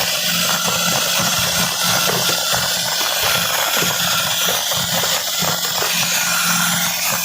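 Air-compressor-driven rock drill rig boring a blast hole into sandstone: a loud, continuous rattle of rapid hammering with hissing air, over a steady low drone.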